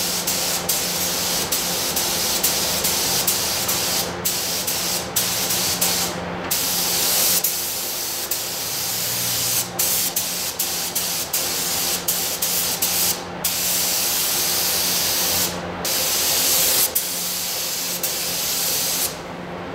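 Gravity-feed air spray gun spraying paint: a loud, steady hiss that stops for brief moments many times as the trigger is let off and pulled again. A faint steady low hum runs underneath.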